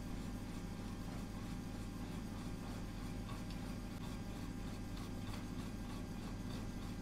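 Steady low hum of a running motor or appliance, with faint small ticks and rustles from hands crimping pastry dough on a plastic sheet.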